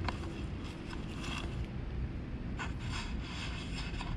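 Steady low rumble, with short rustles in the grass several times as a tabby kitten moves about close by.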